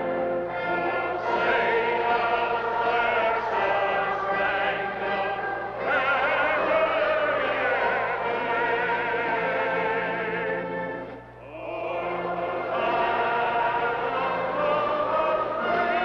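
A choir singing a slow song in long held notes with vibrato, breaking off briefly about eleven seconds in before going on.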